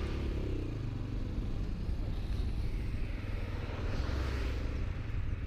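200 cc Chinese motorcycle running at road speed with rider and passenger aboard: a steady low engine drone under an even rush of road and wind noise.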